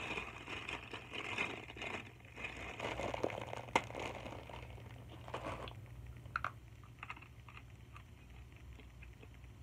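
Plastic wrapper of a Maruchan beef instant ramen packet crinkling as it is handled and dug into, with one sharp snap near the middle. Later come a few short crunches as bits of the dry noodle block are eaten.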